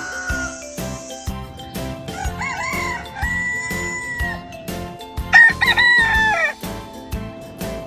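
Rooster crowing twice over background music with a steady beat: a long crow about two seconds in, then a louder, shorter crow that falls in pitch near the end.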